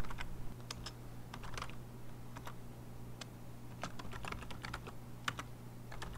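Typing on a computer keyboard, the keys clicking in short, irregular runs over a steady low hum.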